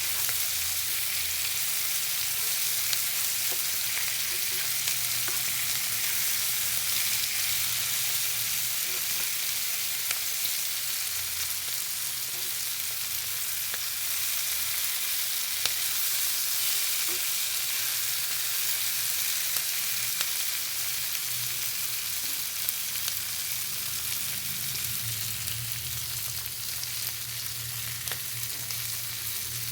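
Food frying in hot oil: a steady sizzling hiss with scattered small pops and crackles.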